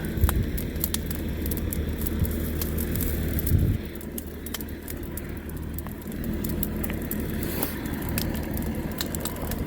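Burning brush pile crackling and popping as the diesel-started fire catches, over a steady low engine hum from a machine running nearby.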